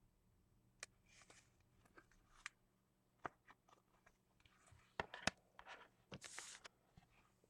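Faint handling of trading cards: scattered light clicks and brief rustles as cards are slid and flipped, with a pair of sharper clicks about five seconds in and a short rustle a second later.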